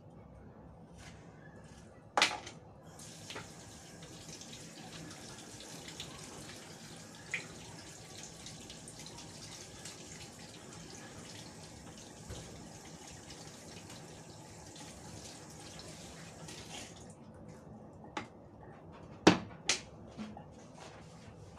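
Kitchen tap running into a sink for about fourteen seconds. A sharp knock comes just before the water starts, and two louder knocks come near the end after it stops.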